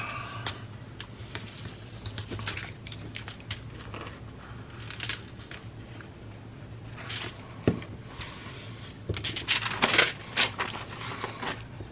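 Paper being handled and folded: intermittent rustling and crinkling as an envelope edge is folded over and pressed flat, with small clicks and light scrapes against the craft mat, busiest near the end.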